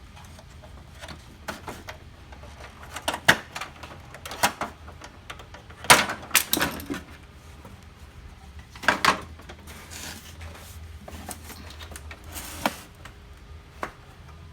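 Irregular plastic clicks, knocks and short scrapes of a laser printer's casing and parts being handled and unclipped during disassembly, the loudest cluster about six seconds in.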